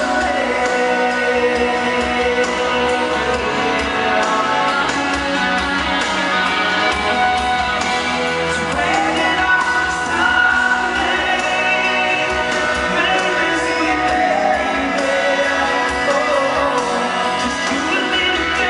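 Live band music with singing over the instruments, steady in loudness.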